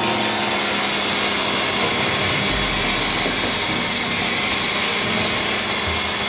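Ryobi 1.2 GPM electric pressure washer running steadily, with the hiss of a foam cannon fitted with a 1.1 mm orifice spraying thick foam.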